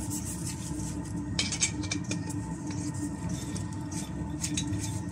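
Faint clicks and scrapes of a screw-in gas cartridge being handled and threaded onto a camping stove burner, over a steady low hum from a diesel space heater running.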